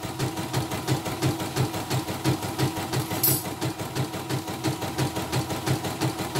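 CNY portable computerized embroidery machine stitching a design, its needle mechanism running at a fast, even stitch rhythm. It runs smoothly, without skipped stitches, after a new bobbin case and readjustment.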